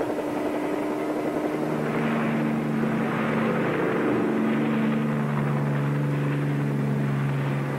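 Bell 47 helicopter running as it comes down and sets down, a steady engine and rotor noise, with low sustained tones that shift in pitch a few times.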